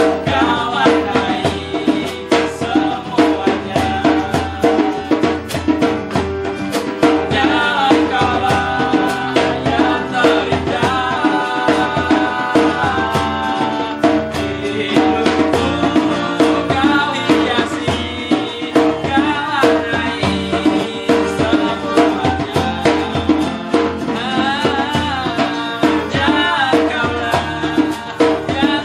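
Two young men sing together over a strummed nylon-string classical guitar and a Yamaha electronic keyboard, with a hand drum tapping a steady beat.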